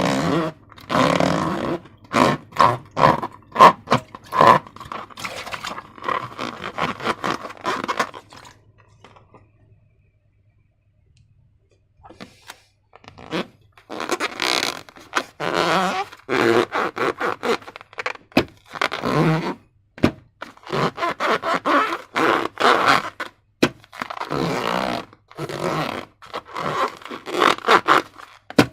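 Slime being worked by hand: rapid, irregular scraping strokes one after another, with a near-silent pause of about four seconds roughly a third of the way in.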